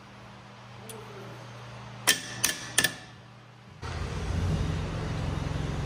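Three sharp metal clicks in quick succession. Then a steady low engine rumble sets in abruptly and runs on.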